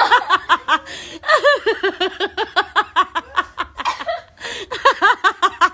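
A person laughing hard, a rapid run of short "ha" syllables, about five or six a second, that pauses briefly and starts up again.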